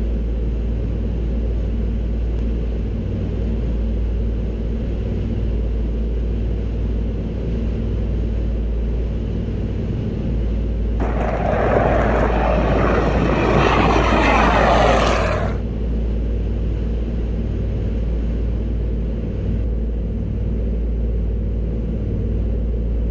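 The Avro Anson's twin Armstrong Siddeley Cheetah radial engines running steadily, heard from inside the cabin as a low, even drone. About halfway through, a louder hissing surge lasts four or five seconds.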